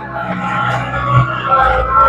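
Background music with held notes that change every second or so, over a low pulse.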